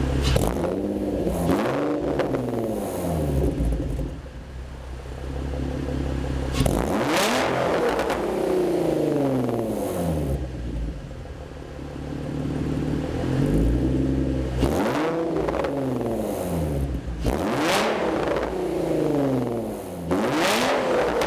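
2005 Infiniti G35 Rev-up's VQ35DE V6 through a Motordyne Shockwave exhaust with ART pipes, idling and being free-revved several times, each rev rising sharply and falling back to idle.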